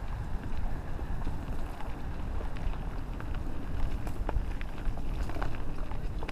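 Wind rumbling on a helmet-mounted camera's microphone as a mountain bike rolls down a dirt trail, with scattered sharp clicks and rattles from the bike and tyres over the ground.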